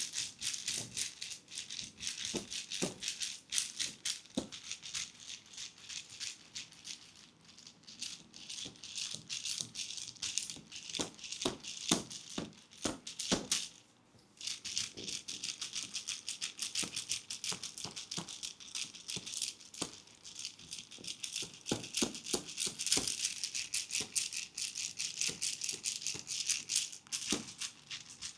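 Thai tok sen massage: a wooden hammer tapping a wooden wedge in a fast run of clicking taps, several a second, with a brief pause about halfway through.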